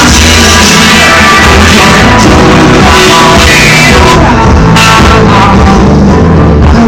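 Live rock band playing through a hall PA, recorded very loud and overdriven, with the distortion of a bad amateur recording.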